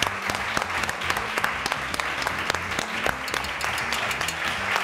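Studio audience applauding: many hands clapping in a dense, even patter.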